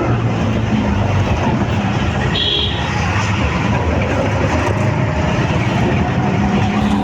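Steady engine and road noise of a moving motor vehicle, heard from on board, with a short high beep about two and a half seconds in.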